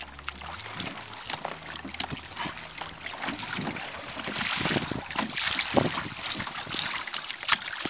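Water lapping and slapping against a kayak's hull in uneven splashes, with wind buffeting the microphone.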